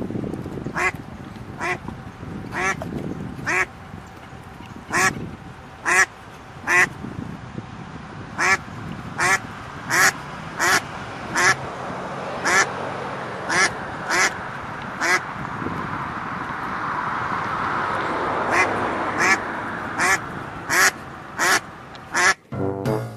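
A duck quacking over and over, one short loud quack about every second, with a pause of a few seconds a little past the middle, over a steady background noise.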